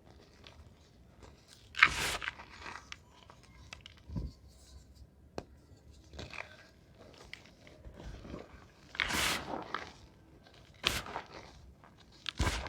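Reformed blocks of gym chalk being crushed and crumbled in irregular crunches and scrapes. The loudest come about two seconds in and around nine seconds in, with fainter crackles between.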